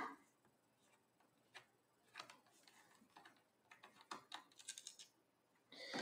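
Faint, scattered small clicks and ticks of a micro-tip Phillips screwdriver working the little screws of a laptop's plastic bottom case, most of them coming in a cluster in the second half.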